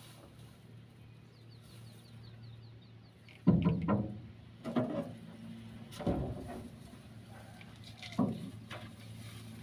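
Four dull thumps and knocks on a metal boat hull as a person moves about in the bow, the first, about three and a half seconds in, the loudest. Under them a steady low hum, and about a second and a half in a faint rapid series of high chirps.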